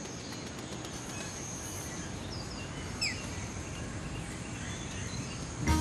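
Outdoor ambience with a steady, high-pitched insect trill, with a few short chirps about two to three seconds in.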